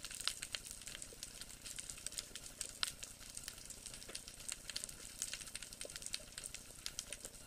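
Underwater reef crackle through an underwater camera's microphone: a dense, irregular crackling of many sharp clicks like frying, with a louder click about three seconds in.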